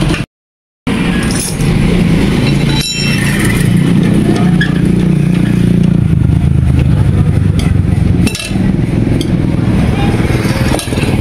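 A small engine running steadily with a low hum, with a sharp clink about three seconds in and another past eight seconds. The sound cuts out completely for half a second near the start.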